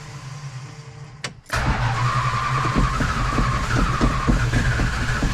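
A 1966 Plymouth Belvedere's engine catches about a second and a half in, after a quieter stretch, and then runs with a pulsing beat as it fires up after a tune-up.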